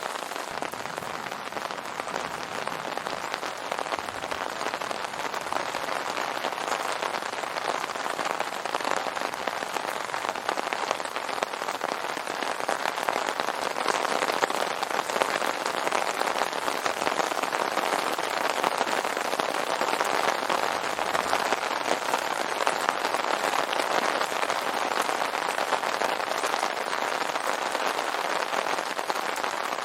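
Rain pattering steadily on an open umbrella canopy, a dense patter of many small drop impacts.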